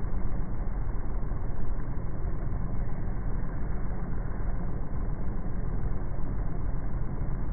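Steady low rumble of outdoor ambience, slowed and pitched down by slow-motion playback, with no distinct events.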